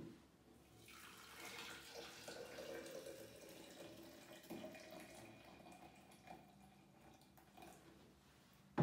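Hot water poured from an electric kettle into a glass tea press over chopped coriander: a soft, steady pouring splash for several seconds, with a faint tone that rises slowly as the press fills.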